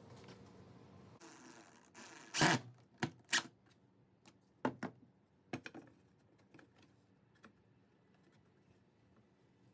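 Sharp knocks and clicks of metal angle brackets and screws being handled and set against a wooden frame. The loudest knock comes about two and a half seconds in, a few more follow over the next three seconds, then only faint scattered ticks.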